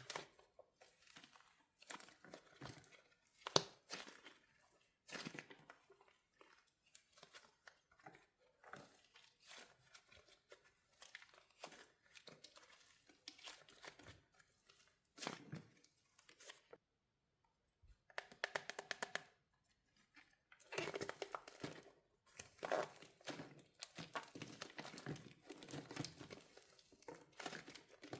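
Wax shell on a soft soap squishy cracking and crinkling as it is squeezed by hand: irregular sharp snaps and crackles. There is a brief pause about two-thirds of the way through, then a quick rattle of clicks and a denser stretch of crackling.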